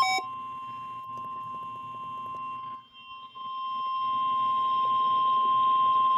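NOAA Weather Radio warning alarm tone (the 1050 Hz tone) sounding through a weather alert radio's speaker in a required weekly test: one steady, high, piercing tone. It drops out briefly about three seconds in, then comes back louder and cuts off sharply.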